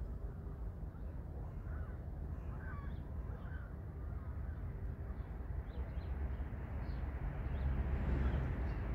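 A few faint short animal calls over a steady low rumble.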